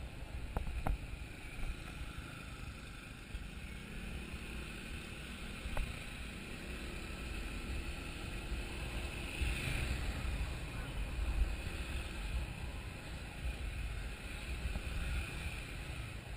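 Sport motorcycle running along at riding speed, its engine a low rumble under steady wind buffeting on the bike-mounted microphone.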